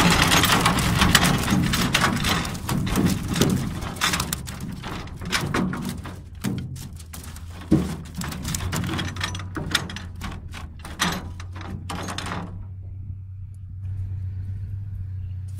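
Freshly caught fish tipped out of a wire-mesh fish trap, slapping and flopping against the floor of the boat and the trap's mesh in a dense run of wet slaps and knocks. The run is thickest at first, thins out, and stops about three-quarters of the way through.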